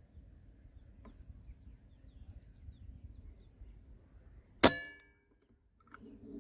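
A single shot from a Kral Puncher Breaker .22 (5.5 mm) PCP air rifle: one sharp crack about two-thirds of the way in, with a short metallic ring after it.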